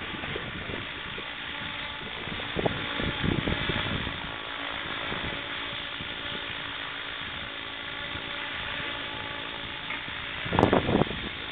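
Scale electric RC helicopter running: a steady whirr of its motor and rotor, with a hissing wash. Wind buffets the microphone in low rumbles, about three seconds in and again near the end.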